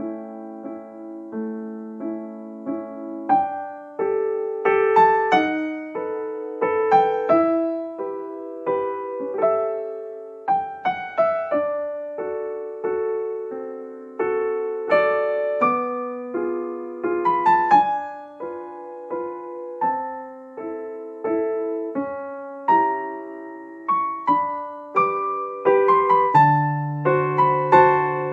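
Background music: a gentle solo piano melody with notes struck and left to ring.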